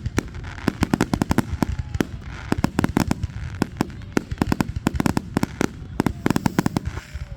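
Fireworks grand finale: a rapid, continuous barrage of sharp bangs and crackling shell bursts, several a second, over a low rumble.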